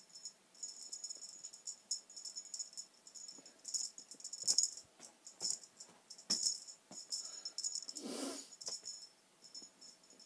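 A small jingle bell rattling in repeated quick bursts, with light taps and rustles, as a cat bats at a feather wand toy. A short burst of rustling noise comes about eight seconds in.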